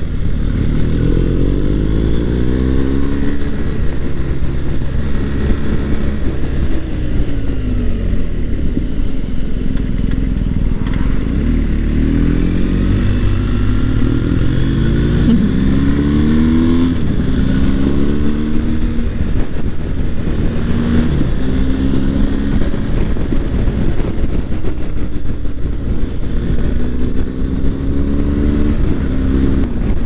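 BMW R1250 GS boxer-twin motorcycle engine heard from the bike while riding, its note climbing and dropping over and over as it accelerates and eases off through bends. Under it runs a steady rush of wind and road noise.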